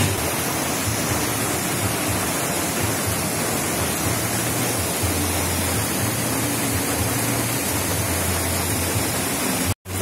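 Steady, dense rush of a waterfall, with a low hum underneath that shifts in pitch every second or so. The sound drops out for a moment near the end.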